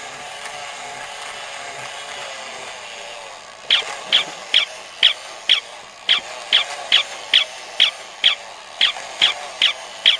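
Mechanical walking toy puppy: its small motor and gears whir steadily. About a third of the way in it starts a run of short, high yaps, about two a second, over the whir.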